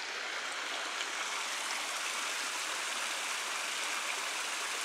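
Shallow water running steadily over stones and the edge of a masonry irrigation-canal intake weir.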